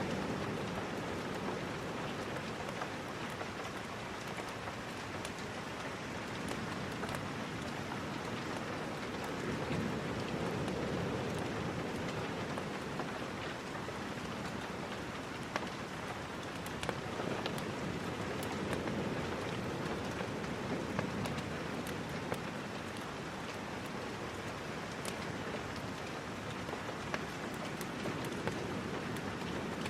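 Steady rain: a dense, even hiss with a deeper wash underneath that swells and eases every several seconds, and scattered sharp ticks and pops.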